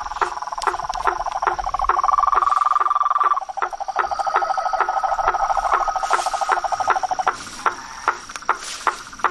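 A chorus of frogs and insects. Short sharp knocking calls repeat steadily a little over twice a second, over long pulsing trills that shift pitch partway through and stop about three-quarters of the way in. A faint steady high insect whine runs underneath.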